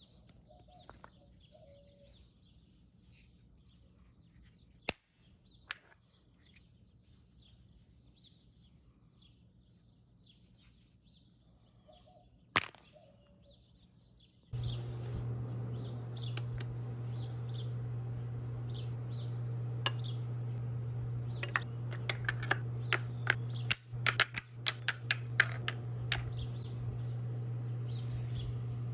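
Quiet first half with faint bird chirps and a few sharp single clicks around cast aluminum ingots lying in ice. About halfway through a steady low hum starts abruptly, and near the end comes a quick run of metallic clinks and knocks as heavy aluminum ingots are stacked against each other.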